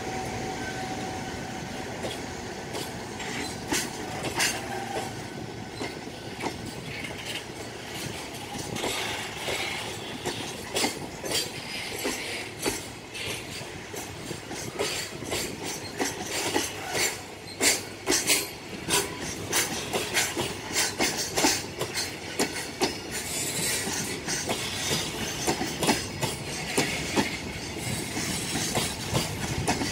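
Long container freight train of Koki flatcars passing close by: a steady rumble with wheels clacking irregularly over the rail joints, the clacks coming more often in the second half.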